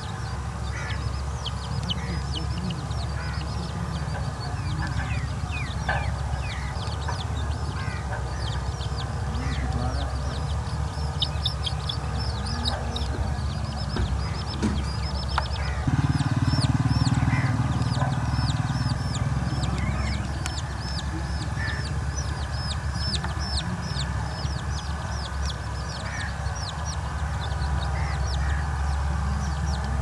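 Domestic chicks peeping: a steady stream of short, high, falling peeps, several a second and thickest through the middle, with a hen clucking. A steady low rumble runs underneath and grows louder about halfway through.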